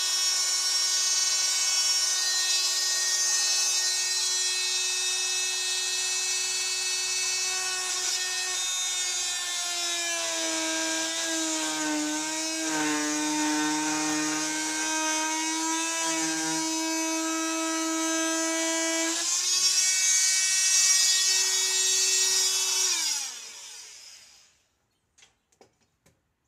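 Handheld electric power tool cutting holes in thin-wall PVC pipe: a steady motor whine whose pitch sags for several seconds in the middle, rises again, then winds down and stops near the end.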